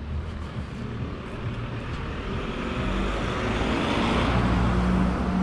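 A car driving past on the street. Its tyre and engine noise grows steadily louder and is loudest near the end.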